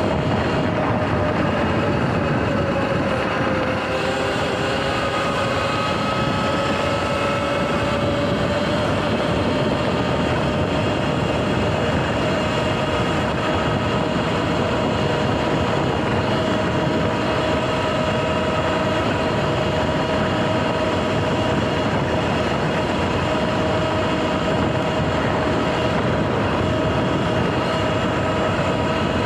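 Sur-Ron electric dirt bike cruising: its motor and drive give a steady whine that dips slightly and then climbs a few seconds in, over a steady rush of wind and tyre noise.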